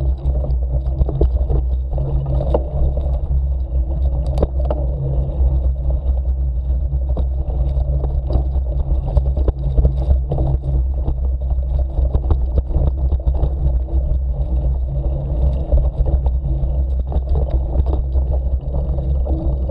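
Steady low rumble with frequent small rattles and knocks from a ride along a rough forest dirt trail at low speed.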